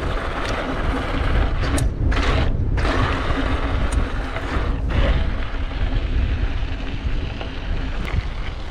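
Hardtail mountain bike riding down a loose dirt trail: steady wind rush on the camera microphone and tyres crunching over loose dirt, with scattered sharp clicks and rattles from the bike. The hiss drops out briefly around two seconds in and again near five.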